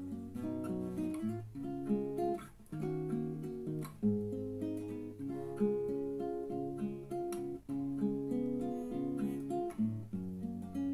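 Nylon-string classical guitar playing a solo instrumental passage: fingerpicked chords over moving bass notes, with a few sharp strummed chords.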